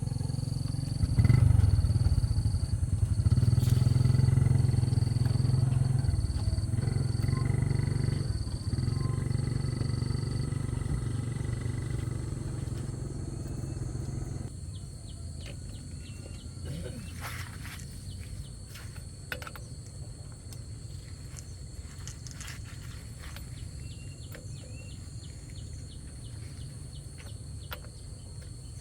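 A low mechanical rumble, like a motor running, that cuts off abruptly about halfway through, followed by scattered light clicks and knocks.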